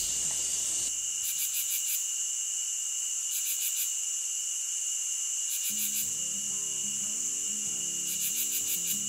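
Steady high-pitched chorus of summer insects, with a pulsed trill repeating about every two seconds over it. Soft background music comes in a little past halfway.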